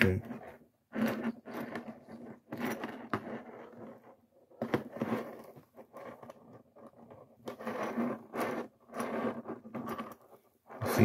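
A small flat-blade screwdriver scraping and clicking against the plastic shell of a VW-group folding car key remote in short, irregular bursts, as it is worked into the seam to pry the casing halves apart.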